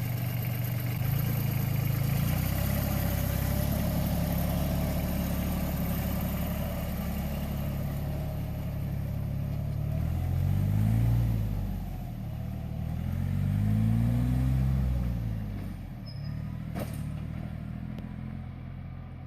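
Carraro 5500 small tractor's engine running steadily, then revved up and back down twice, about ten and thirteen seconds in, before settling to a quieter idle. A single sharp click near the end.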